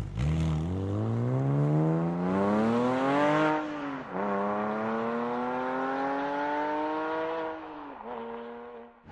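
Porsche 997 Carrera flat-six through an EVOX ValveTronic stainless exhaust with the valves open, accelerating hard. The revs climb, drop at a gear change about four seconds in, and climb again. Near the end the throttle is lifted, with one short blip before the engine settles.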